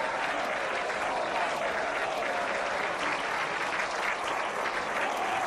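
A large assembled crowd applauding, a dense, steady clatter of many hands.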